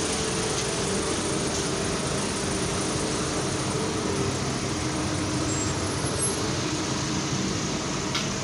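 Car engines running at low speed in a narrow street: a steady low hum over constant traffic noise.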